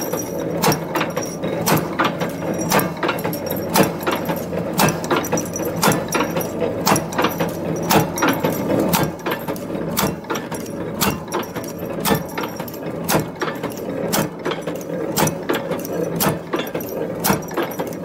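Steel strip packing buckle making machine running, its feeding, punching and forming tooling making sharp metal clacks at a steady rhythm of about two a second over a continuous mechanical hum.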